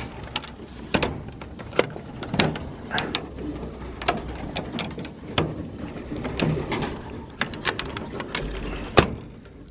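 Racing pigeons cooing inside their loft, mixed with scattered sharp clicks and knocks.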